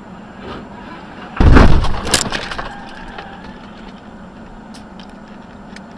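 Car crash: a sudden heavy impact about a second and a half in, followed by a sharp crack and glass breaking, then a few scattered clicks of falling pieces over a steady road hum.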